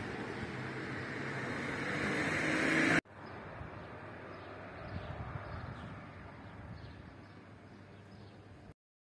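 Street traffic noise: a passing vehicle grows louder over the first three seconds, then the sound cuts off abruptly to a quieter steady street hum, which gives way to dead silence near the end.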